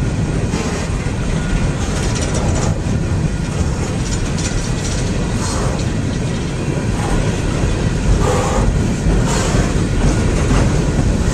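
A long freight train of coal gondolas rolling past: the steady rumble of steel wheels on rail, with occasional clicks as the wheels cross rail joints.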